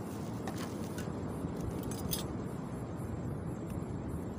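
Steady low rush of sea surf and wind, with a few light crinkles and clicks from a plastic bag and an egg being handled.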